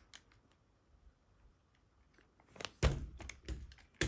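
Side-lever action of an AEA HP Max PCP air rifle worked by hand: faint ticks, then a sharp metal clack with a dull knock nearly three seconds in, followed by a few smaller clicks.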